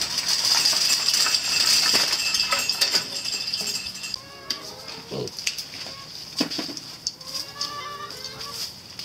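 Loud crackling rustle of dry leaves and brush, with many small clicks, over a steady high hiss for the first few seconds. From about halfway in come a string of short farmyard animal calls, each bending in pitch.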